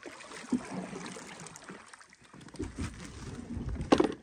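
Water splashing and lapping around a small boat as a pole works in the water, with a sharp knock about four seconds in.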